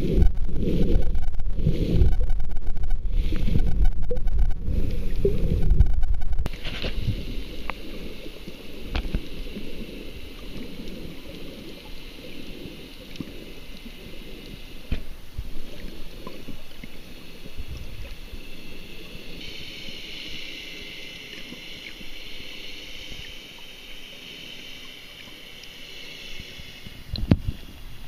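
Muffled underwater ambience picked up by a submerged camera: a steady low rumble and hiss with faint crackling. For the first six seconds or so, loud rhythmic low pulses run over it, then stop abruptly. About a second before the end comes a short splashing burst as the camera breaks the surface.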